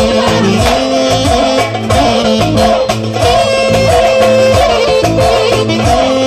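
Loud dance music with a steady beat, a repeating bass line and a wavering melody line above it.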